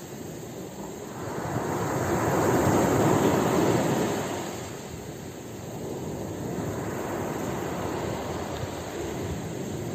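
Sea waves washing in: a swelling rush that builds to a peak about three seconds in, ebbs, then rises again into a steadier wash.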